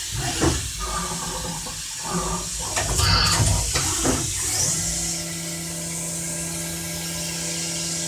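CNC machining centre cutting a plastic part, with coolant spraying in a steady rushing hiss. A few knocks come in the first half, then a steady motor hum starts about five seconds in.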